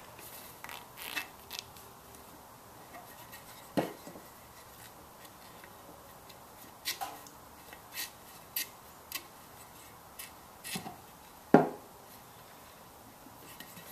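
Scattered light knocks, taps and rubbing from a metal bandsaw wheel with a newly fitted urethane tire being handled and turned over on a plywood board, with a sharper knock near the end.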